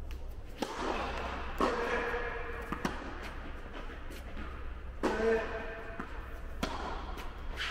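Tennis rally: a ball struck by rackets and bouncing on an indoor court, a sharp hit or bounce every second or so, each ringing on in the hall's echo.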